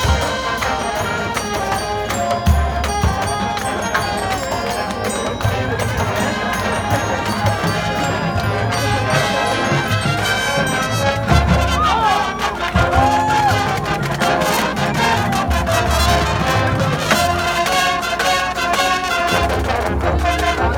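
High school marching band playing its field show: brass ensemble over drums, with repeated deep bass drum hits.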